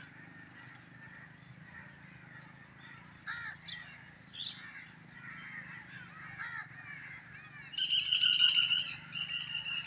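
Outdoor birds calling: scattered faint chirps, then about eight seconds in a much louder, harsh, drawn-out squawk that lasts over a second, followed by shorter repeated calls.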